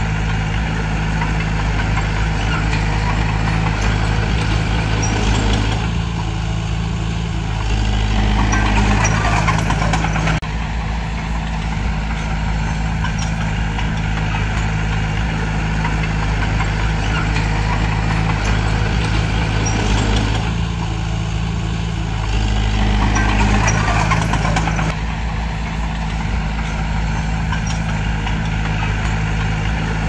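Mini bulldozer's diesel engine running steadily, working harder twice, about eight seconds in and again near twenty-two seconds, when it gets louder and a rattle joins it.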